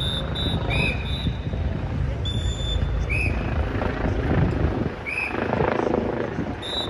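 Helicopter flying overhead, its rotor a steady low rumble under the city street noise. Short, high whistle blasts repeat every second or so.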